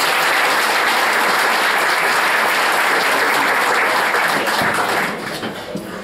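Audience applauding steadily, fading out about five seconds in.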